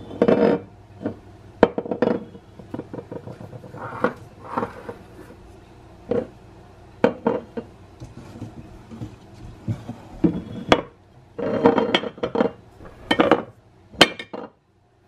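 Oil bottles being set down and shifted on a ceramic-tile kitchen counter: scattered knocks and glassy clinks, some coming in quick clusters.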